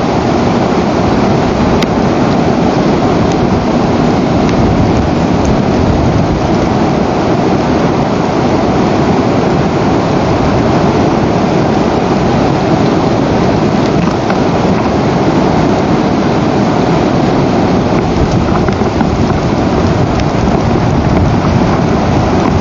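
Steady, loud rushing noise of rain falling on the nest camera and its microphone.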